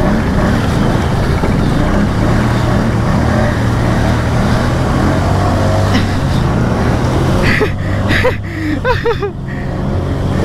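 Can-Am Outlander ATV engine running steadily under load through mud. Near the end the sound briefly breaks up into a short wavering warble.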